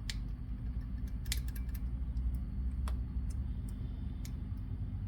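A few sharp, separate metallic clicks of small parts and tools being handled while fitting brake hardware, over a steady low hum.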